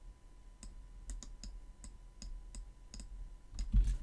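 Faint computer mouse and keyboard clicks, a scattered series of short clicks, with a louder low thump near the end.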